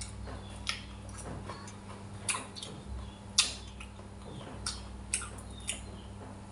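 Metal spoon and chopsticks clicking against a stainless steel bowl while scooping rice and fish: sharp, separate clicks at irregular intervals, about one a second, the loudest about halfway through. A steady low hum runs underneath.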